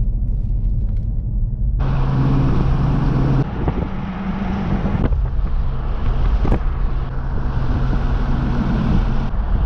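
Steady vehicle rumble with a low engine hum and rushing noise. The noise changes abruptly a few times.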